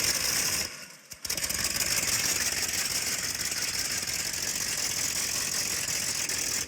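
An engine running with a fast rattle, dropping out briefly about a second in and then running steadily.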